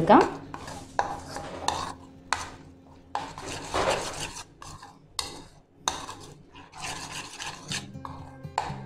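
Steel spoon stirring a thick, wet spice paste in a bowl, scraping and clinking against the bowl's sides in irregular strokes.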